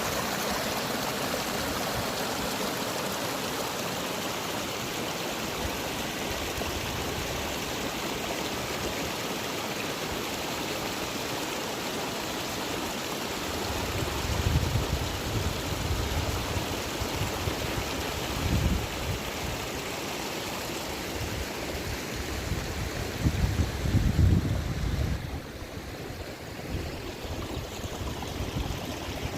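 Fast-flowing water rushing steadily, with two spells of low rumble on the microphone, about halfway through and a few seconds before the end.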